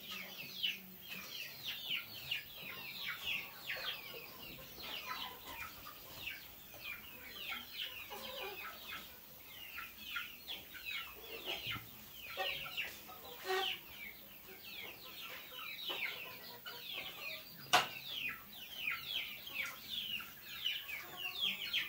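Birds chirping steadily in a dense stream of short, high, falling chirps, with one sharp click about 18 seconds in.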